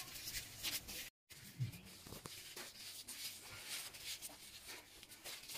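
Faint, irregular rustling and crinkling of thin disposable plastic gloves as fingers pinch and pleat soft dough closed around a minced pork filling.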